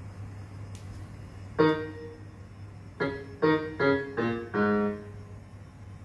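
Electronic keyboard notes pressed by a cat: a single note about a second and a half in, then five notes in quick succession, the last held longest.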